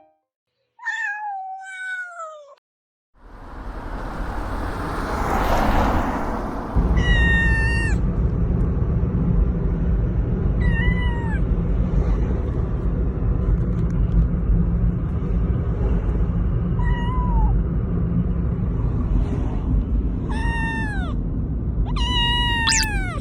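A young kitten meowing repeatedly, about seven calls that each fall in pitch, over a steady low rumble that begins a few seconds in.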